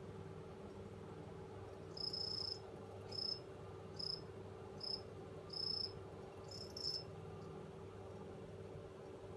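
A cricket chirping: six short, high-pitched chirps over about five seconds, starting about two seconds in, over a faint steady low hum.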